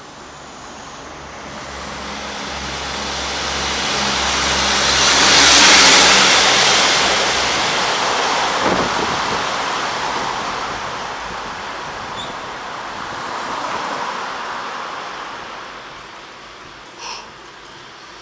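A car overtaking on the road, its engine and tyre noise building to a peak about six seconds in and then fading away. A second, smaller swell of passing traffic follows around fourteen seconds in.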